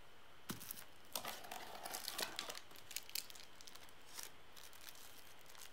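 Thin plastic packaging crinkling and rustling in the hands as an accessory is unwrapped, with a light knock about half a second in and a few scattered clicks afterwards.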